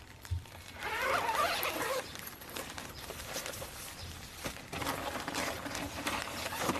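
Fabric tent carry bag rustling and scraping as it is handled and dragged across a bed platform, in two spells: about a second in, and again from about five seconds in.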